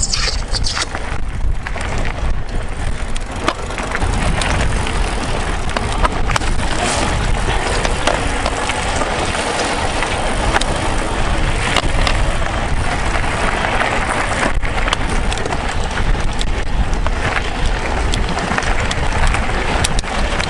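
Mountain bike rolling over a rough gravel track: continuous tyre noise with frequent knocks and rattles from the bike.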